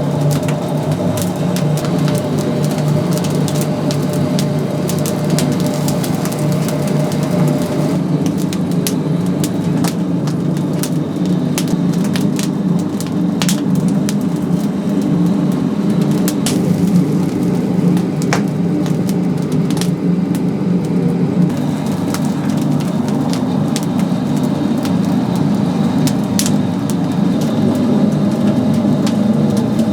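Oak wood fire crackling, with frequent sharp pops, over a steady low rumble.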